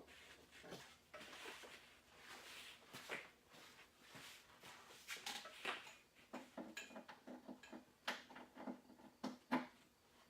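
Near silence: faint room tone with scattered small, faint clicks and rustles.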